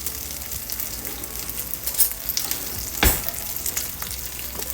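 Food sizzling in a large frying pan, a steady hiss with small crackling pops. A sharp knock sounds about three seconds in, with a lighter one a second before it.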